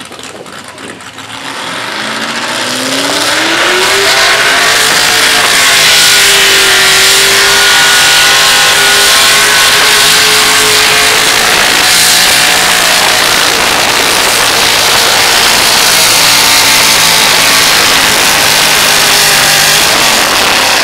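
Modified Chevrolet pulling pickup's engine at full throttle, dragging a weight-transfer sled. The revs climb over the first few seconds, then hold high and steady, and the sound drops off right at the end.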